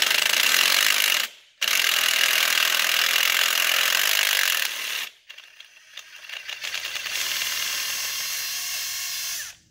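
Bosch quarter-inch drive electric impact driver with a 10 mm deep-well socket hammering rapidly as it unscrews a diesel glow plug from the cylinder head. It runs in trigger bursts: a short stop about a second in, another around five seconds, then it runs more lightly for the last couple of seconds as the plug comes loose.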